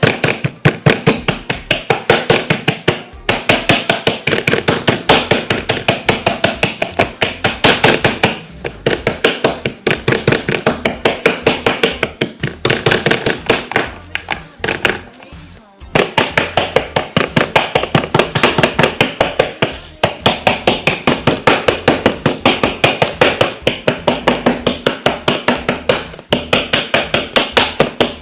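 A fork rapidly jabbing raw pork chops on a plate to tenderise them, knocking about six times a second, with a short pause about halfway through.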